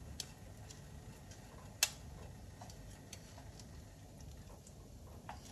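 Breaded pork cutlets frying in oil that is not yet very hot: a faint hiss with scattered light clicks and pops, the sharpest about two seconds in.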